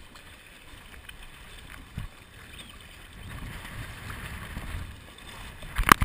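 Sea water sloshing and splashing around a sit-on-top kayak under way on choppy water, growing busier about halfway through. A single knock about two seconds in and a cluster of loud sharp knocks near the end.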